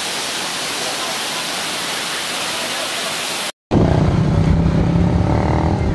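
Waterfall rushing, a dense steady hiss of falling water. About three and a half seconds in it cuts off abruptly, and a motorcycle engine takes over, running steadily as it rides along.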